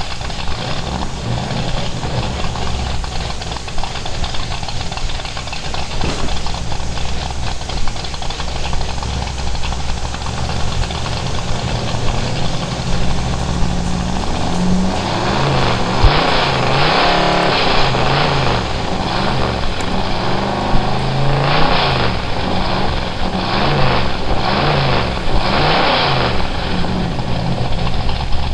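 Rat-rod 1940s Ford pickup's engine idling through open stack exhaust pipes, then revved hard about six times in quick succession in the second half, each rev rising and falling in pitch.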